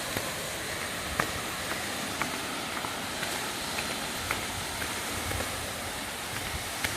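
A waterfall's steady rushing, with scattered light ticks and clicks over it.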